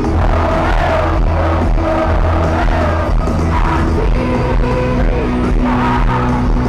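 Loud live worship music with a steady heavy bass and held chords, and singing over it, with a large crowd singing and shouting along.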